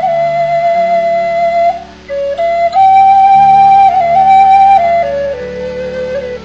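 A wooden end-blown flute plays a slow melody of long held notes. There is a short break for breath about two seconds in, then the melody climbs to a higher note and steps down to lower notes near the end. Low steady notes sound underneath.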